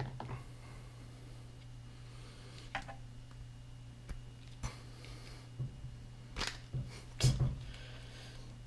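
Handling noise as wet latex slingshot tubing is worked and pushed onto a slingshot's frame yoke: scattered light knocks and rubs, the loudest about seven seconds in, over a steady low hum.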